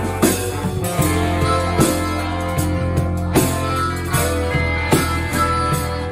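Live rock band playing an instrumental passage: electric guitar over a held bass-guitar line and drum kit, with strong drum hits on a steady beat.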